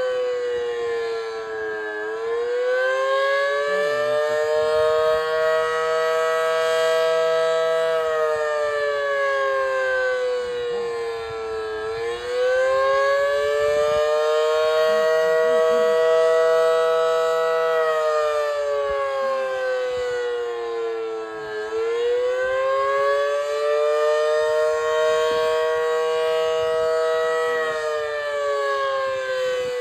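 Federal Sign and Signal Model 5BT warning siren sounding the attack signal: two pitches wailing together, rising and falling slowly about every ten seconds and held briefly at the top of each rise.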